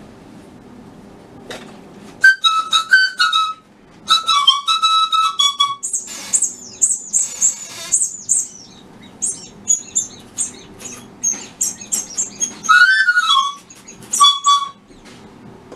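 Bird-like whistling: short runs of whistled notes and high chirps and tweets, with a rising-then-falling glide near the end.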